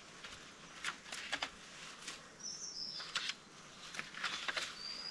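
A bird gives a short high chirp about two and a half seconds in, with more high notes near the end, over scattered light clicks and rustles.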